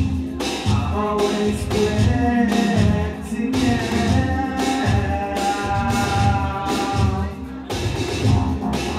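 Live electronic music from a laptop and electronic drum kit: a heavy, pulsing bass beat with a sung vocal line over it.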